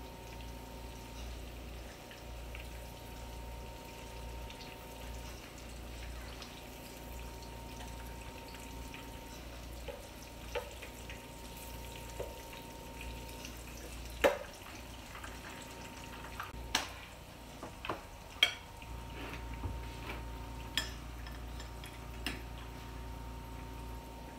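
Breaded zucchini spears frying in shallow oil in a skillet, a steady sizzle. From about halfway through, a run of sharp clicks of metal tongs knocking against the pan.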